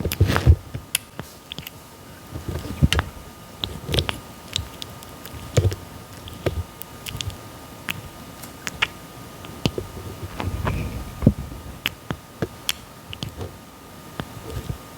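Red-footed tortoise biting and chewing soft papaya: irregular clicks of its beak, with a louder bite now and then.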